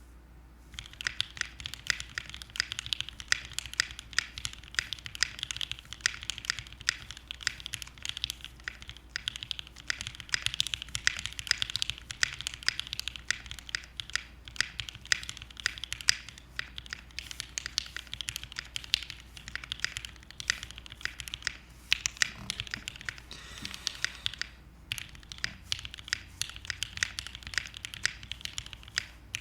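Continuous fast typing on a Keychron Q7 mechanical keyboard with lubed Durock L2 linear switches in a full aluminium plate and PBT keycaps: a dense run of keystroke clacks that starts about a second in, easing off briefly a few seconds before the end.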